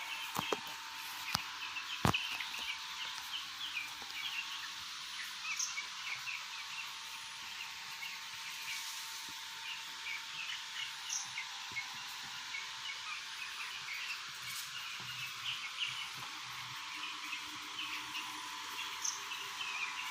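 A flock of 12-day-old chicks peeping, many short chirps overlapping without pause. The birds are heat-stressed and gasping. Beneath them runs a steady hiss and a thin, even hum.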